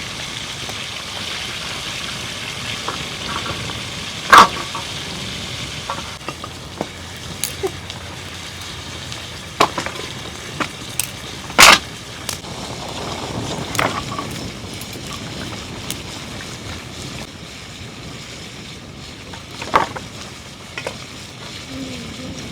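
Food sizzling as it fries in a pan over an open fire, stirred with a utensil that knocks sharply against the pan several times, loudest about 4 and 12 seconds in.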